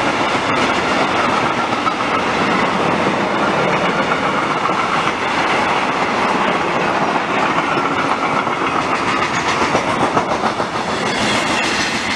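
Coal freight train's wagons rolling past close by: a loud, steady running noise of wheels on the rails.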